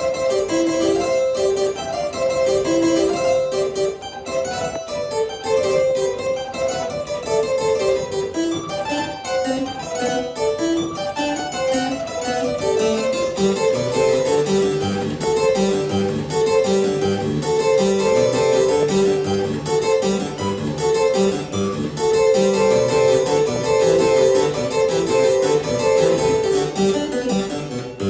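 Solo harpsichord playing a lively piece in rapid running notes, its strings plucked by the keys' quills.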